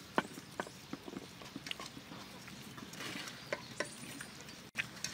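Hands rubbing seasoning and sauce into raw whole chickens in a stainless-steel bowl: faint, irregular soft slaps and clicks of wet handling.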